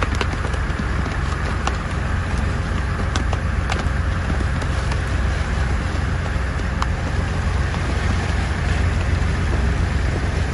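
Boat engine running steadily with a low hum, with water splashing and a few scattered sharp ticks.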